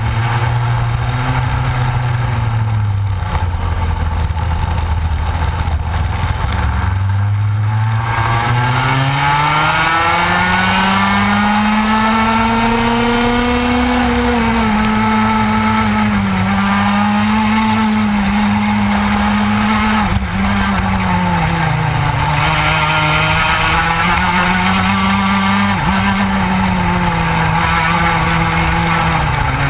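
Onboard sound of a TKM Extreme racing kart's two-stroke engine running hard in a pack. It holds low and steady for the first several seconds, climbs steadily in pitch from about eight seconds in, then rises and falls in pitch again and again for the rest.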